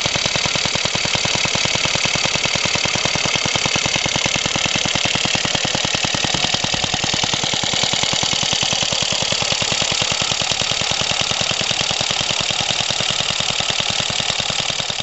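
Suffolk 75cc two-stroke stationary engine running steadily, with a rapid, even firing beat, as it drives a belt-driven air compressor.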